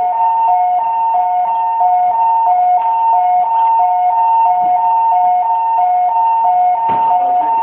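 Building fire alarm sounder giving a two-tone hi-lo signal, a higher and a lower tone alternating evenly about three times a second, set off by toast forgotten in a toaster. A brief knock sounds about seven seconds in.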